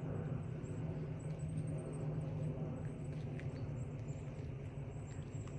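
Steady low outdoor rumble with faint, thin, high bird chirps coming and going over it.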